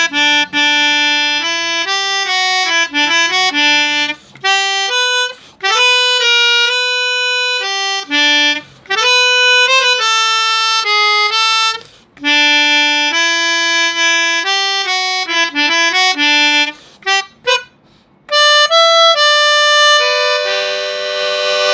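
Samick Melodihorn A-25 melodica (25-key keyboard harmonica) playing a melody one note at a time, in phrases with short breaks between them. It ends on a held chord near the end.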